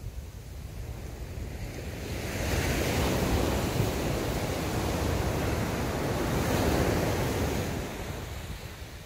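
Sea waves breaking and washing up the beach: the surf swells louder about two seconds in and ebbs away near the end, with wind rumbling on the microphone underneath.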